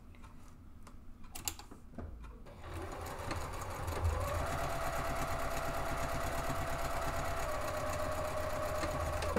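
Juki sewing machine stitching a seam through fabric. After a couple of light clicks, it starts slowly about three seconds in, runs at a steady fast speed from about four seconds, and stops near the end.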